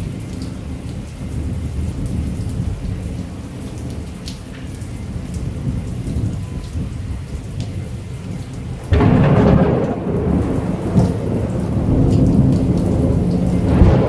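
Heavy rain with a low, continuous rumble of thunder. About two-thirds of the way through, a sudden loud thunderclap breaks in and rolls on, louder than before.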